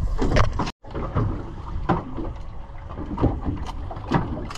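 Fishing-boat ambience: a steady low rumble with wind on the microphone and scattered knocks and clatters. The sound cuts out completely for a moment about a second in.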